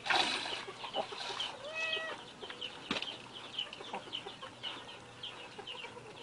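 A kitten meows once, about two seconds in, over a steady run of short, high chirping calls from birds.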